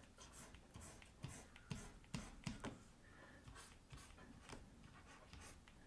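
Faint, irregular short scratches and taps of a digital pen stylus stroking across a drawing tablet while shading.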